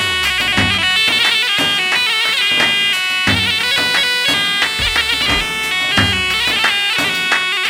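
Loud Arabic wedding dance music: a reedy, bagpipe-like wind melody with a wavering pitch, over a deep drum beat.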